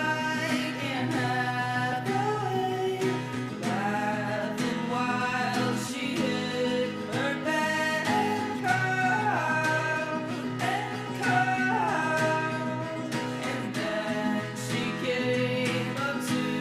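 Country-style background music: steady acoustic guitar picking with a melody that slides between notes over it.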